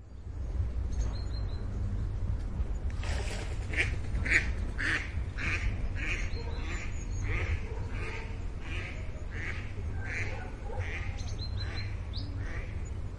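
A bird calling over and over, about two calls a second, starting about three seconds in, over a steady low rumble. A few faint high chirps are also heard.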